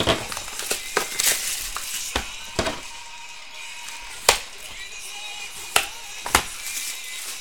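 Scattered sharp taps and knocks of sealed sports card boxes and packs being handled and opened on a table, with background music under them.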